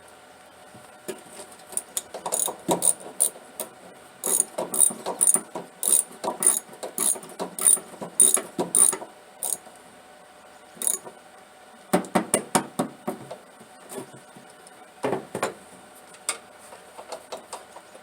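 Hand ratchet clicking in quick runs with pauses between, a socket wrench working a spark plug loose or tight.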